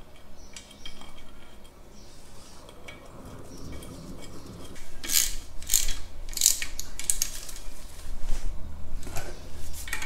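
Socket ratchet clicking in short runs, about two strokes a second through the second half, as the bolts of a wheel-hub bearing cap are tightened down.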